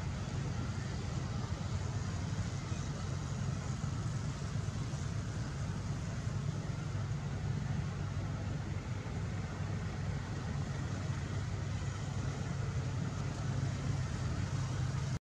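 Steady low rumbling background noise with no distinct events, cutting off abruptly near the end.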